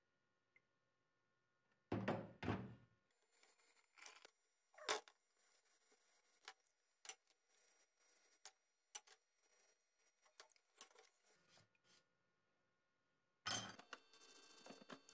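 Metal meat grinder parts being handled and scrubbed in a tub of liquid: a double knock with a splash about two seconds in, then scattered clicks and scrapes of brushing. Near the end, a loud knock and a steady hiss of scrubbing with a brush in soapy water.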